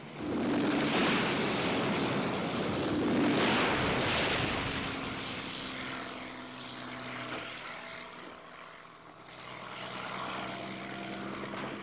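Small helicopter flying low, its piston engine and rotor running with a steady drone. It sweeps close twice in the first four seconds in two loud rushing swells, then drops back, fading and coming close again near the end.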